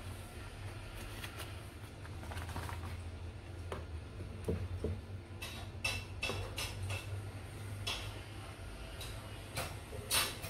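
A soaked moi moi leaf being handled and folded into a cone: soft rustles and crinkles with scattered sharp clicks, the sharpest around the middle and near the end, over a low steady hum.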